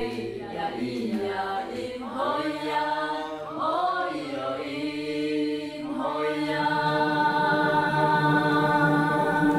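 Several voices singing a slow chant, each phrase sliding up onto a long held note.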